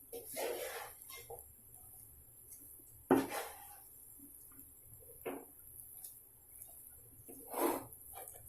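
A spoon scraping and clinking against a pot as cooked biryani is stirred and mixed: a few separate scrapes and knocks, the sharpest about three seconds in.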